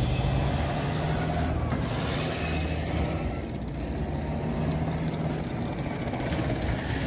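Tracked armoured vehicle driving past close by, its engine running steadily.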